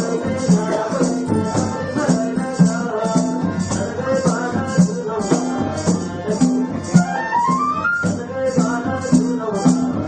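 Background music with a steady rattling, shaker-like percussion beat under melodic instruments, with a rising run of notes about seven seconds in.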